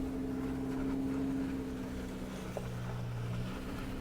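Suzuki Jimny JB74's 1.5-litre four-cylinder engine running steadily at low revs as the 4x4 crawls up a steep off-road climb. Its note shifts slightly about two-thirds of the way in.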